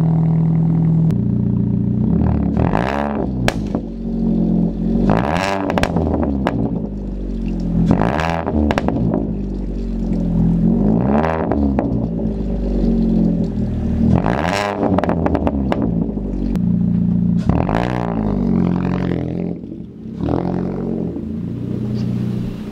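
Chevy Cruze four-cylinder engine through a straight-piped exhaust, muffler removed and stock catalytic converters kept, idling and then revved in about seven short blips roughly every three seconds, each rising and falling in pitch.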